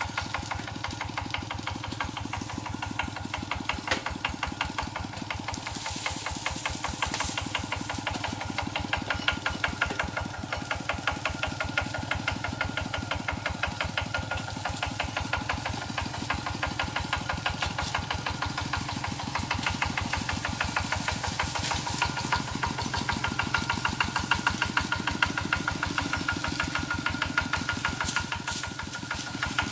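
Kubota RT120 walking tractor's single-cylinder diesel engine running steadily, with a rapid, even beat of firing pulses as the tractor is driven along on its steel cage wheels.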